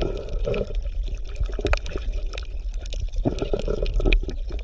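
Water bubbling and gurgling, with a steady low rumble and scattered crackles, as heard in an underwater recording.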